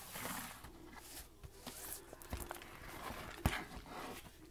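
Rustling and handling of a paperback booklet as it is picked up off a desk and opened, its cover and pages brushing, with a sharp tap about three and a half seconds in.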